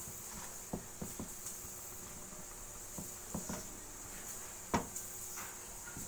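A hand mixing oil and salt into dry flour in a steel bowl: soft rubbing with scattered light taps and clicks of the hand against the bowl, the loudest tap about three-quarters through.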